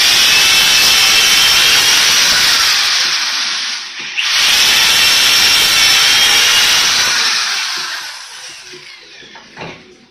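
Corded Bosch electric drill running at speed, its bit boring down through a stack of wooden furring strips in two long runs with a short break between them. The second run winds down, and a short knock follows near the end.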